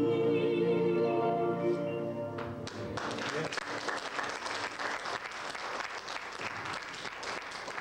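A male vocal group holds a final sung chord that ends about two and a half seconds in, then the audience applauds.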